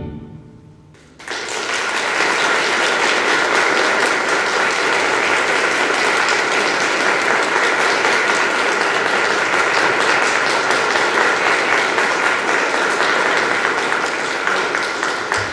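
Concert audience applauding at the end of an orchestral piece, the clapping breaking out suddenly about a second in and then going on steadily.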